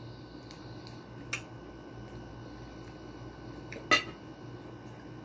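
Pomelo being eaten: quiet chewing with a few sharp clicks, the loudest about four seconds in, over a low steady hum.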